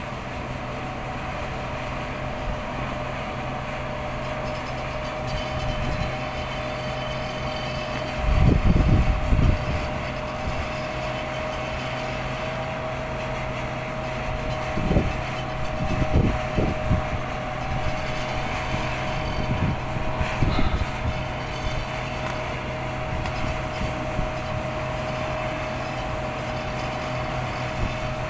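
Radio-controlled model hydraulic excavator running, its pump motor giving a steady whine. Several short low thuds come through, the loudest about a third of the way in.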